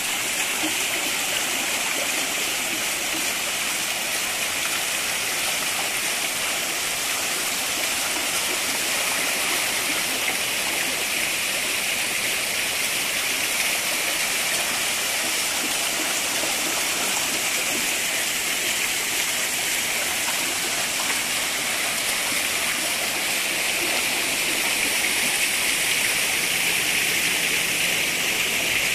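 Steady rush of falling water: small cascades pouring over stepped rocks and a wooden water wheel and splashing into a shallow pool.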